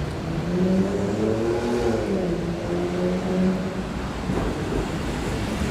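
Keikyu 2100 series electric train coming into the platform: its traction motors give a whine of several stacked tones that shifts in pitch partway through and fades about three and a half seconds in, over the rumble of the rolling train.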